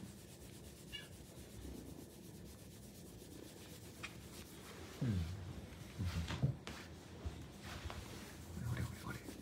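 A hand rubbing and ruffling a Maine Coon cat's long fur, a soft rubbing that grows louder and more uneven, with scuffs and bumps, from about five seconds in.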